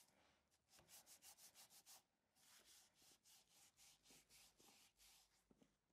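Near silence, with a very faint rapid rubbing or scraping of several strokes a second, in two short runs.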